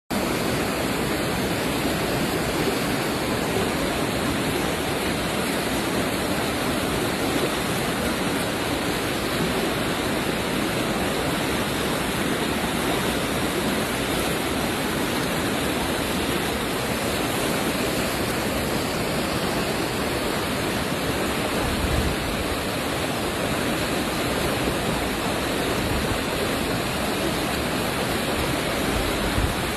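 Floodwater rushing in a steady, loud wash of water after heavy rain, with a brief low thump about two-thirds of the way through and another near the end.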